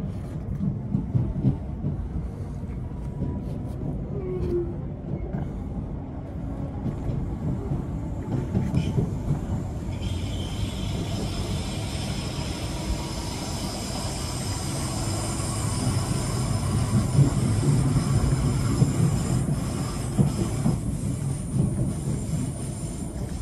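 Merseyrail electric train running between stations, heard from inside the carriage: a steady low rumble of the wheels on the track. About ten seconds in, several high, steady whining tones set in.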